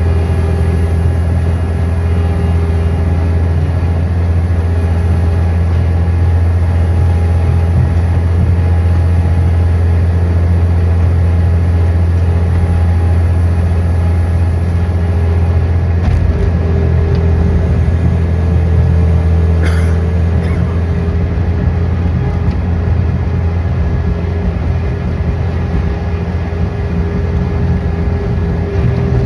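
An engine running steadily with a deep, even hum; its note shifts slightly about halfway through.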